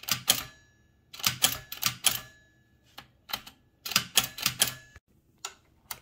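Toshiba BW-3112 Japanese kanji typewriter's line-spacing mechanism being worked by hand, setting single and then double spacing: several quick bursts of sharp mechanical clicks and clacks with short pauses between them.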